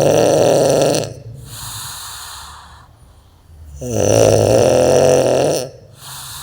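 A man snoring in his sleep: a long, loud, rattling snore ends about a second in, a softer breath follows, and a second loud snore runs from about four seconds to nearly six, again followed by a softer breath.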